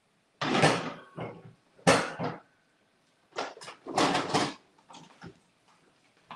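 Kitchen cupboard and cookware being handled: a run of clattering knocks and bangs over the first four and a half seconds, one followed by a faint metallic ring, then softer handling noises.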